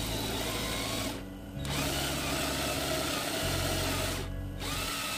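Cordless drill boring into a plywood board, its motor running steadily with two short let-ups, one about a second in and one near the end.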